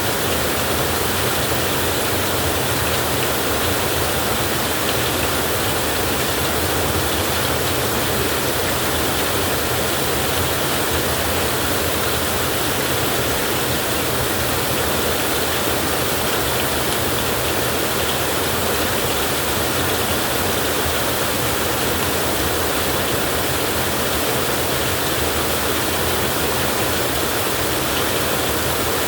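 Heavy rain falling in a steady, even downpour, with no thunder and no change in intensity.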